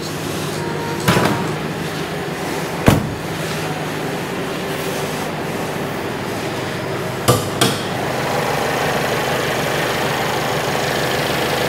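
Mercedes-Benz W205 C-Class bonnet being released and opened: a click about a second in as the release is pulled, a solid thump about three seconds in, the loudest sound, then two quick knocks close together past halfway as the bonnet catch is freed and the bonnet lifted, over a steady workshop hum.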